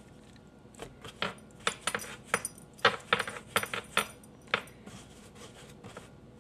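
Hands rolling and shaping bread dough on a floured wooden board: a run of short, sharp clicks and taps against the wood over about four seconds, then only faint rubbing near the end.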